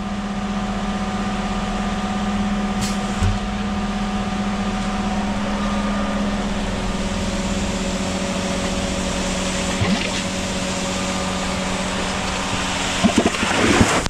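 A ready-mix concrete truck's diesel engine runs fast and steady while its drum unloads concrete into a concrete pump's hopper, with a constant rushing noise over the engine drone. A few clanks come near the end.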